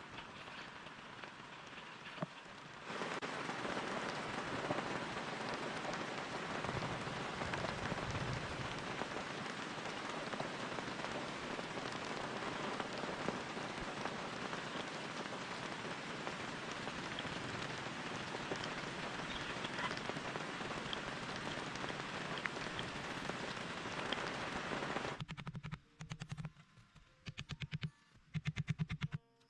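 Steady rain falling, stepping louder about three seconds in. Near the end it cuts off suddenly, and a few short, uneven sounds follow.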